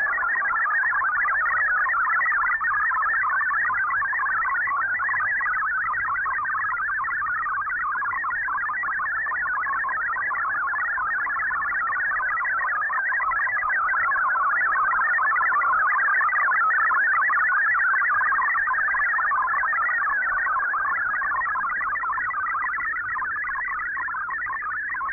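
MFSK digital text signal from a shortwave radio broadcast: a dense, fast warble of high tones hopping rapidly from note to note, steady throughout, carrying text as it is being decoded.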